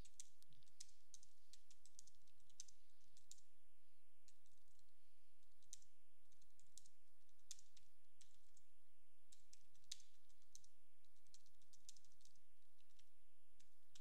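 Typing on a computer keyboard: irregular key clicks in quick runs, broken by short pauses.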